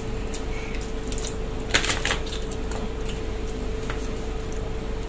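Irregular small clicks and cracks of a steamed crab's shell being pulled apart and picked at by hand, with a cluster of louder cracks about two seconds in, over a steady low hum.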